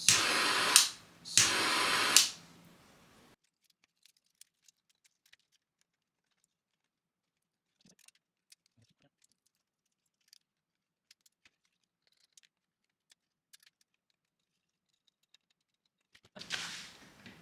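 Small torch burner hissing in two bursts, its flame blown over a 3D print to melt away white stress marks; the hiss stops after about two seconds. Then only faint small clicks of handling, until the hiss starts again near the end.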